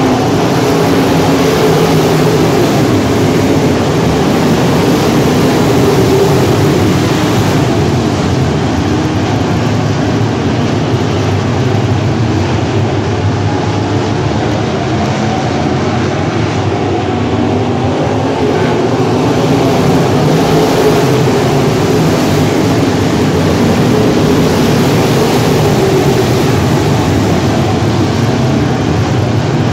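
A field of IMCA Modified dirt-track race cars running at racing speed around the oval, their V8 engines merging into one loud, steady drone.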